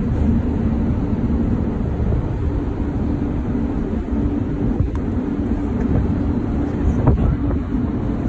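Strong sea wind buffeting the microphone as a steady low rumble, with a steady hum underneath; a faint knock about seven seconds in.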